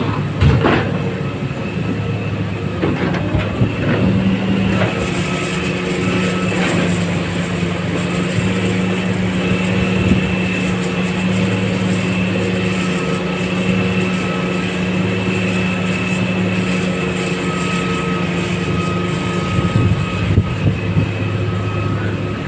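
Excavator diesel engine running steadily under load, with a high whine over the engine drone. A few sharp knocks in the first several seconds as iron ore is loaded into a truck.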